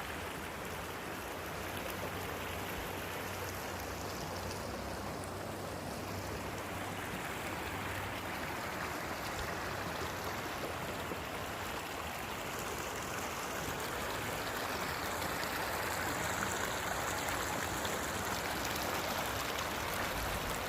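Spring water flowing and running downhill in a steady rushing stream, growing a little louder toward the end.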